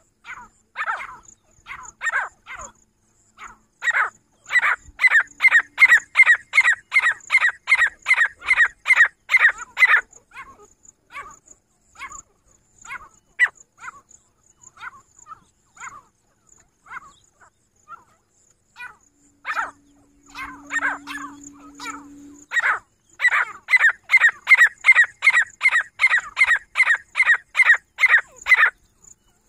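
Female grey francolin (teetar) calling: two long runs of loud, evenly repeated notes, about three a second, with scattered single notes between the runs.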